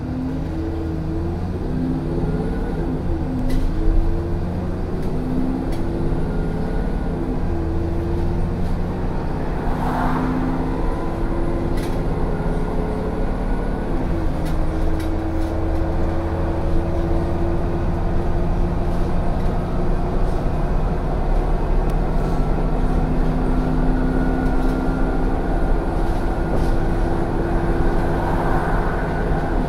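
Replacement engine of a 2007 ADL Enviro 400 double-decker bus, heard from inside on the upper deck. It pulls away and accelerates through the gears, the engine note climbing and dropping back at each change over the first fifteen seconds, then running steadily at speed. There is a brief hiss about ten seconds in, with light rattles from the bodywork.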